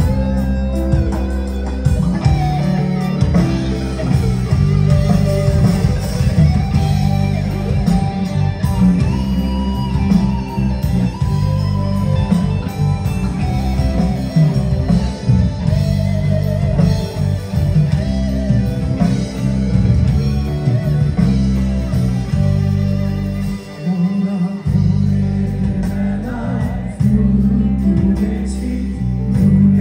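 Live rock band playing: electric guitars, bass, drums and keyboard under a male singer, heard from within the crowd with a heavy, boomy low end. The low end drops out for about a second roughly four-fifths of the way through.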